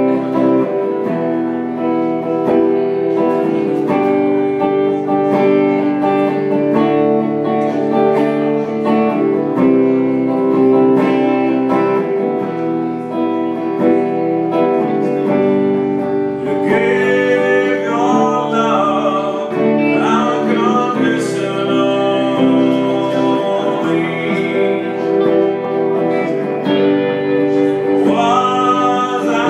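Two guitars, an acoustic and a white electric, playing a song live, with a man's voice coming in singing about halfway through.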